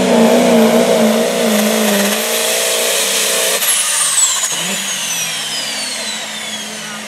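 Turbocharged diesel hot-farm pulling tractor under full throttle, dragging the sled, its engine note wavering up and down. About three and a half seconds in, the throttle is suddenly cut as the pull ends. The turbo's high whine then falls away steadily as it spools down.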